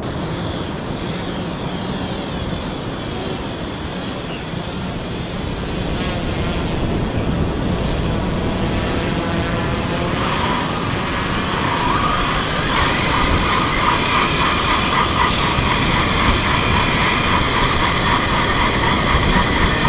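Fishing drone's rotors whining as it flies out with the bait line. The pitch wavers at first; about ten seconds in a strong steady whine takes over and grows louder. Wind rushes on the microphone.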